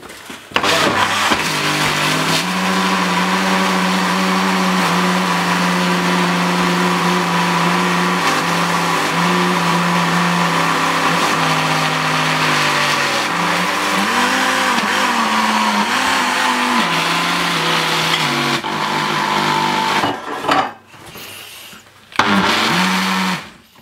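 Countertop blender running at its fastest speed, churning soapy water and a sponge with a scouring pad. It starts about half a second in and runs steadily, its pitch dipping and wavering now and then as the load shifts. It stops about twenty seconds in, then runs again briefly near the end.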